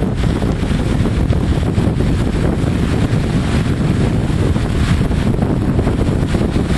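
Wind blowing across the microphone, a steady low rumble.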